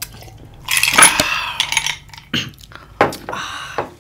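Ice cubes clinking in a drinking glass and a glass and ceramic mug knocking against a tabletop: a loud clatter of about a second, then several short sharp knocks.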